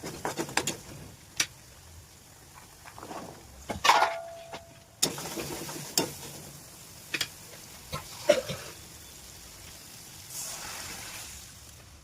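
Kitchen cooking sounds: a metal utensil clinking and knocking against a pan in a run of sharp, irregular strikes, one of which rings briefly about four seconds in, with a short hiss of sizzling near the end.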